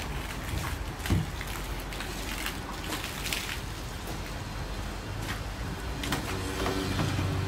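Water jet from a self-service car wash lance spraying onto a foam-covered car, a steady hiss of spray with scattered splashes. A low hum comes in about five seconds in.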